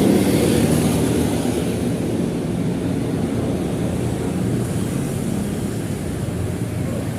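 Heavy road traffic going past: a large vehicle's engine hum, loudest at first, fades over the first two seconds into a steady traffic rumble. No horn sounds.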